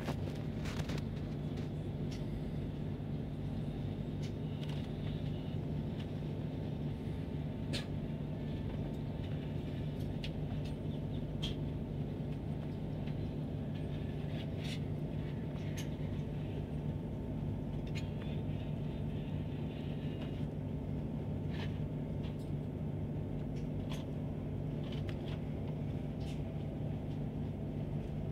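Steady low rumble and hum inside the passenger cabin of a Trenitalia ETR 485 Pendolino train running at about 55 km/h, with scattered short sharp clicks and ticks.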